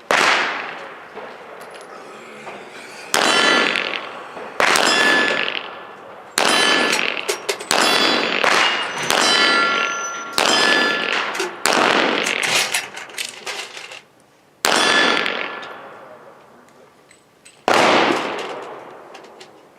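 Handgun fired slowly at steel targets, about ten shots spaced one to three seconds apart, each shot echoing away. Several shots are followed by the ringing ting of a struck steel plate, the sign of a hit.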